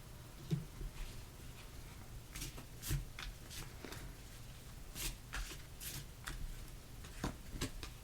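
Tarot cards being handled and shuffled: a scattered series of short flicks and soft slaps of cards, sparse at first and busier from about two seconds in.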